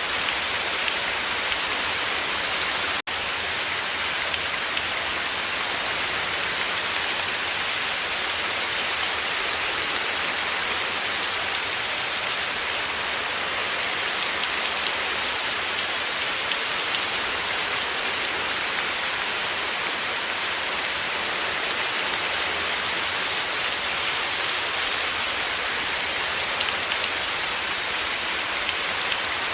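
Steady heavy rain: a dense, even hiss of drops pattering on a surface, with a momentary dropout about three seconds in.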